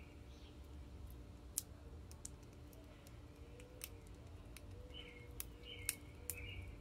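Irregular sharp clicks and cracks as a common grackle pecks at sunflower seeds on a plastic platform feeder, its beak striking the seeds and the tray. Short bird chirps come in the background near the end.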